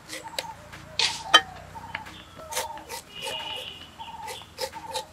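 A kitchen knife slicing through a banana flower held in the hand: a run of short, crisp cuts at an uneven pace. Chickens and small birds call in the background.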